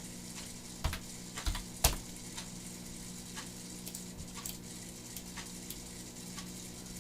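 Scattered clicks of computer keyboard keys and mouse buttons as dimension values are entered. A few louder clicks come in the first two seconds and lighter ones spaced out after, over a faint steady low hum.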